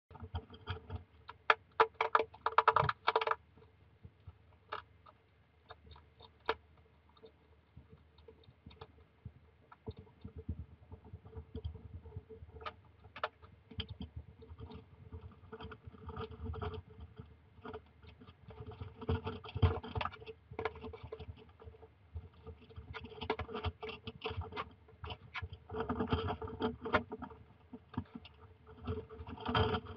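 European hedgehog crunching and chewing dry kibble from a bowl: irregular sharp clicks, with louder bursts of crunching near the start and again through the second half. A faint steady hum lies underneath.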